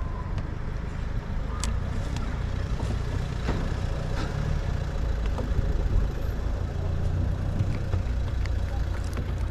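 Steady low rumble of a vehicle engine running nearby, with a few faint clicks over it.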